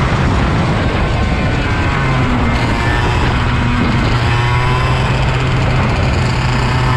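IAME KA100 100cc air-cooled two-stroke kart engine heard from the kart itself, running loud and settling to a steady lower note about two seconds in.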